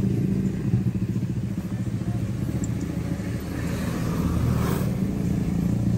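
A vehicle engine running steadily close by. A brief hiss swells and fades about four seconds in.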